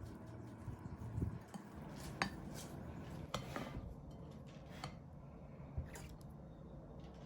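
Kitchenware handled: several light clinks of utensils against dishes, spread out over a faint steady background hum.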